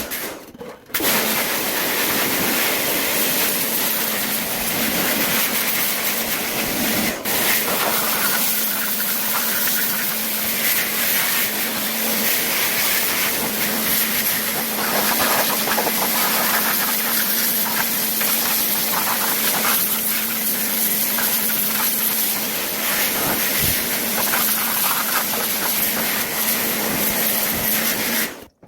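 Steady hissing spray from a cleaning machine used on washing-machine parts, with a steady motor hum underneath; it stops briefly about a second in and cuts off at the end.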